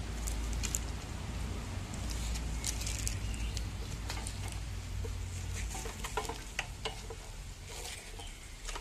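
Scattered small clicks and rustles of a control cable in its plastic wrap being handled and fitted by gloved hands, over a steady low rumble and hiss.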